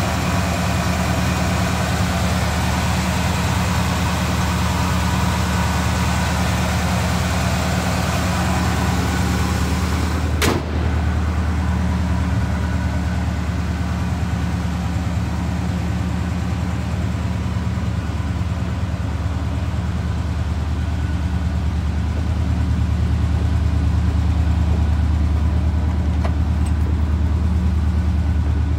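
The truck's freshened-up 350 small-block V8, fitted with an Edelbrock carburetor, idling steadily. There is a single sharp click about ten seconds in.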